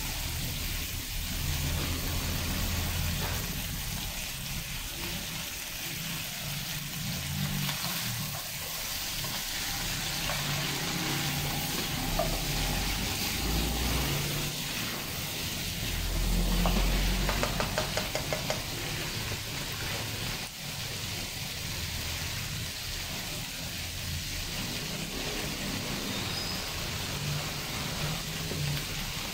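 Boiled beef chunks and green chilies sizzling as they are sautéed in a nonstick frying pan, with a spatula stirring and scraping the pan now and then, loudest a little past the middle.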